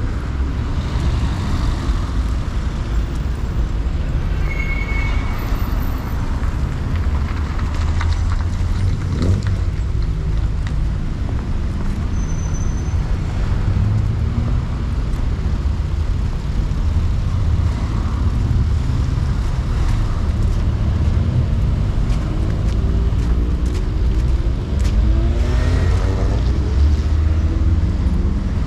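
City street traffic: cars passing over a steady low rumble, with one vehicle accelerating past near the end, its engine note rising.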